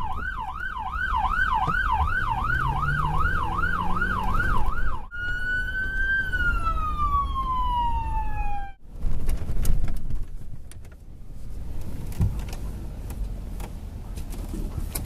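Police car siren on a fast yelp, about three sweeps a second, over an engine pulling away. About five seconds in it switches to a wail that rises briefly, slides down and cuts off near nine seconds. A rumble of street noise with scattered knocks follows.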